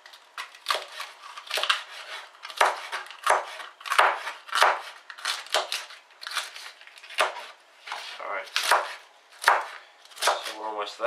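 Chef's knife chopping cabbage leaves on a plastic chopping board, a cut about every half second in an uneven rhythm.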